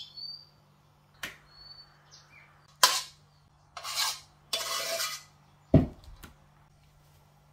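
A spoon clanking and scraping against a metal pot and a metal baking tray as thick mash is scooped out and dropped onto the tray. There are a few sharp clanks, two scraping passes in the middle, and a heavy thud near the end.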